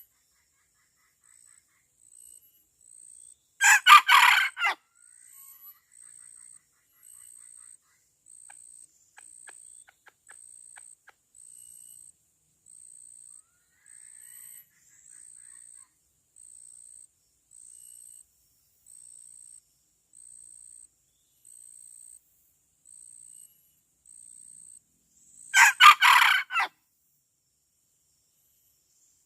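Male junglefowl decoy cock crowing twice, a short, clipped crow of about a second each time, about 4 seconds in and again near the end. Between the crows a faint, very high insect chirp repeats evenly, roughly once every 0.8 seconds.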